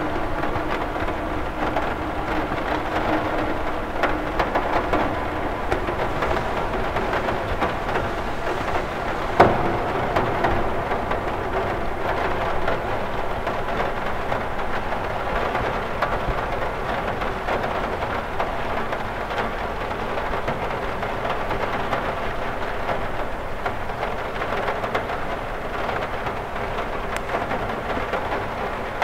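Steady rain falling on a cathedral window, a constant patter with scattered sharper drop taps and one louder tap about nine seconds in.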